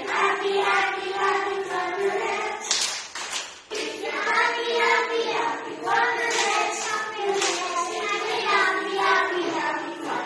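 A group of young children singing an action song together with an adult leading them, with some hand clapping.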